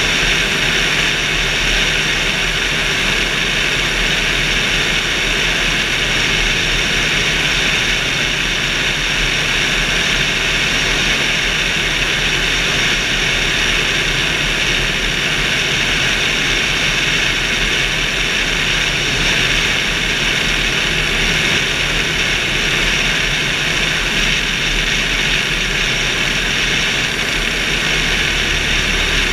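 Steady rush of airflow past a wing-mounted camera on a motorglider in flight, with a steady drone underneath, unchanging throughout.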